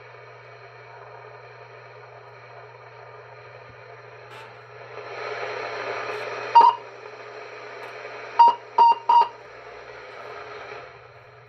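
Cobra 142 GTL CB base station's speaker at full volume, giving steady receiver hiss over a low hum. The hiss swells about halfway through, and four short beeps sound: one a little past halfway and three in quick succession about two seconds later.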